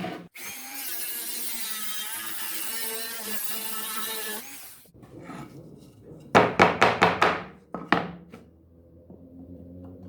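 Wood being worked down to fit: a steady abrasive rasping for about four and a half seconds, then a quick run of about half a dozen short, sharp strokes.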